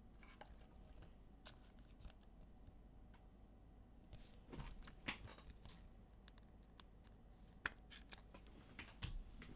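Near silence with faint clicks and soft rustles of trading cards being handled, a few slightly louder around the middle and once more later on.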